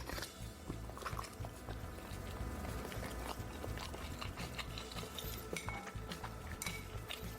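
Eating at the table: utensils clicking against bowls and plates in many short taps, with chewing.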